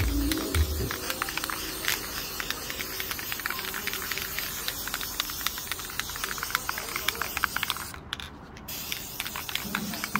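Aerosol can of spray primer hissing as it sprays onto the exhaust pipes and muffler, with a brief stop about eight seconds in.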